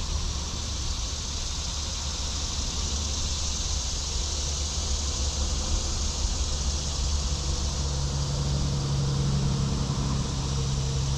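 Steady outdoor background along a creek: an even rushing hiss over a low rumble, with a low steady hum coming in about two-thirds of the way through.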